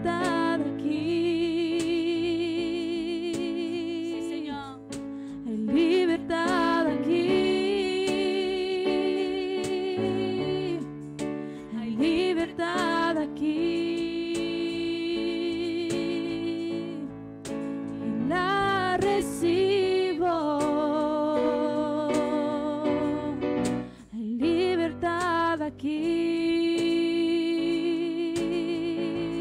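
Live worship music: a woman singing long, held notes with vibrato in phrases a few seconds long, over sustained keyboard chords.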